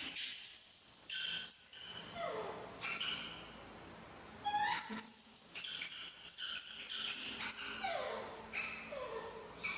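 Young macaque giving repeated high-pitched squealing cries, long held squeals mixed with shorter falling whimpers, with a short lull in the middle.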